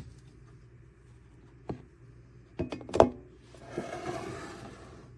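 Kitchenware being handled on a counter: a few sharp knocks and clicks, the loudest about three seconds in, then a soft rushing noise through the last second and a half.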